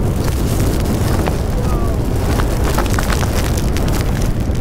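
Cyclone-force wind buffeting the microphone: a loud, steady rush with a deep rumble and a few sharp clicks.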